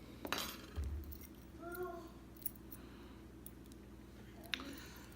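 Scattered light metallic clicks and clinks as padlock parts and tools are handled, with a short clatter just after the start and another near the end. A brief voice sound comes about two seconds in.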